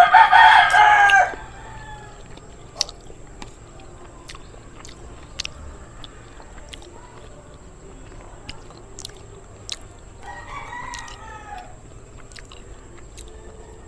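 A rooster crowing, one loud call at the very start lasting just over a second. A fainter second crow comes about ten seconds in.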